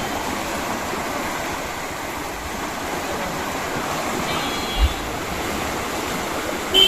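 Floodwater rushing steadily through a river sluice gate, with a brief low thump about five seconds in.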